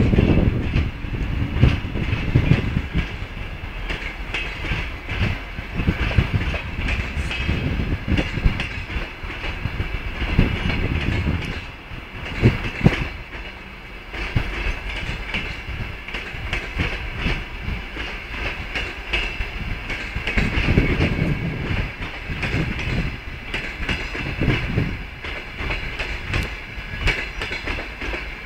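Passenger train coaches rolling slowly through a station, the wheels clicking and knocking over the rail joints over a steady rumble.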